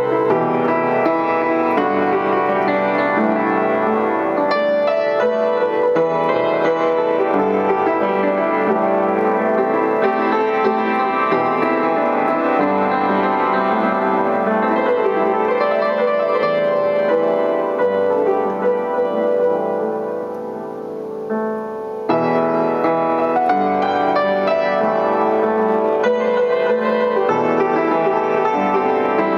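Upright piano being played in an improvised, chordal style, with many notes sounding together throughout. About two-thirds of the way in the playing grows softer for a few seconds, then comes back in full all at once.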